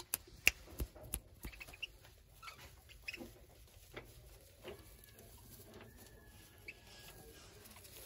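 Faint clicks and rustles of caged birds moving and pecking on rice-husk bedding, quick in the first two seconds and then sparse, with a faint thin chirp in the second half.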